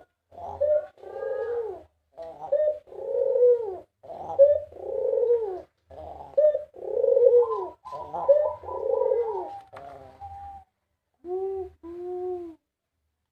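White puter dove (domestic ringneck dove) cooing in a long rapid series of arching coos, followed near the end by two shorter, lower coos.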